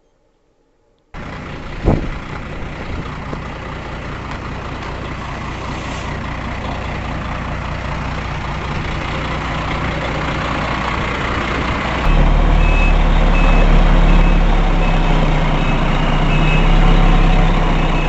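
Loud, steady vehicle and engine noise that starts abruptly about a second in, with a sharp knock a second later. From about twelve seconds a heavier engine rumble comes in, along with a reversing alarm beeping at an even pace, under a second between beeps.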